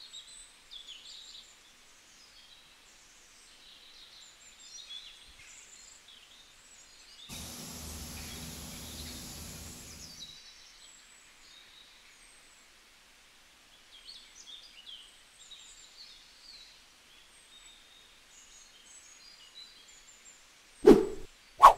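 Small birds chirping faintly and intermittently over a quiet outdoor background. About a third of the way in, a hiss lasts about three seconds, and near the end there are two sharp, loud knocks.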